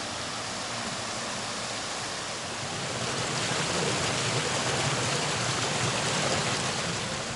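Fast-flowing mountain water rushing in a steady hiss, growing louder about three seconds in and easing slightly near the end.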